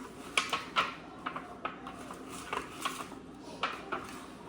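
Irregular light taps and clinks of cake pans being handled on the counter while they are greased with buttered napkins.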